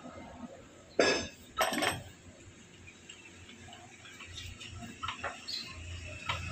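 Metal hand tools and clutch parts clinking during work on a motorcycle's exposed clutch: two loud metallic clanks in quick succession about a second in, then scattered light clinks.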